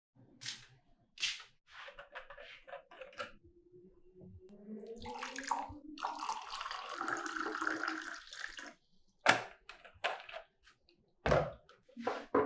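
Short sharp knocks and clicks, then a longer stretch of running or pouring water whose pitch rises, then more single knocks.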